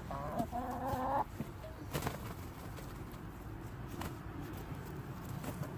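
Hens clucking: one wavering, drawn-out call in the first second, then a few faint sharp taps.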